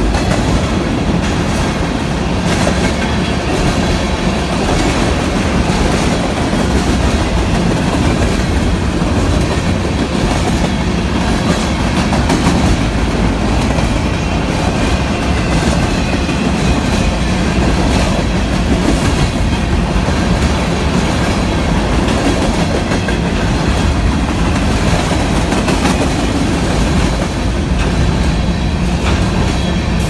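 Freight cars of a manifest train rolling past: a steady rumble of steel wheels on rail, with scattered clicks as the wheels pass over the rail joints.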